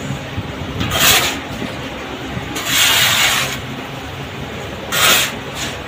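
Black foundry sand shovelled and tipped into a wooden moulding flask: three rushes of pouring sand, about a second in, a longer one near the middle and one near the end, over a steady low hum.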